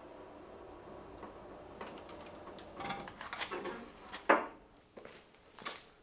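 Metal tools and parts being handled in a garage: a faint steady background, then a run of clinks and rattles from about halfway, with one sharp clank past the middle and another near the end.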